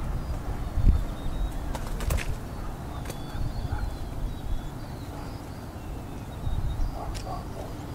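Wind noise on the microphone with a few faint, short, high bird chirps, and a couple of sharp clicks from handling the camera.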